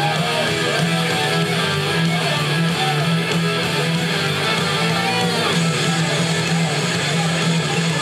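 Loud guitar-led pop-rock music with strummed electric guitar over bass.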